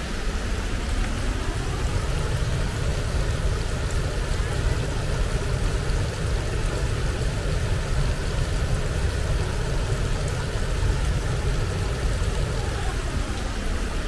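Rushing water making a steady, unbroken noise that is heaviest in the deep range.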